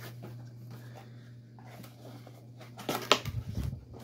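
Cardboard toy packaging being handled: the box's top flap opened and the inner box slid out. There are light scrapes, then a cluster of louder scuffs and knocks about three seconds in, over a steady low hum.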